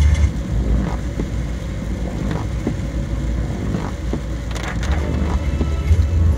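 Inside a car driving in heavy rain: steady low rumble of the engine and tyres on the wet road, with rain striking the windscreen and roof in irregular sharp taps, a few louder ones about four and a half and six seconds in.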